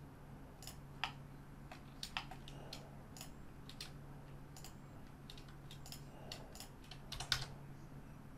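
Computer keyboard keys and mouse buttons clicking while software is operated: scattered, irregular single clicks with a few quick pairs, a cluster a little after seven seconds in.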